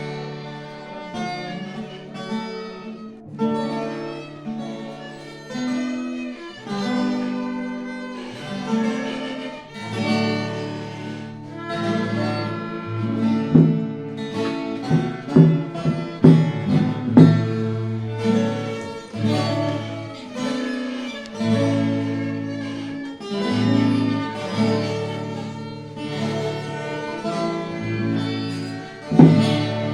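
Acoustic guitar strummed together with a bowed string instrument holding sustained notes, playing a folk tune.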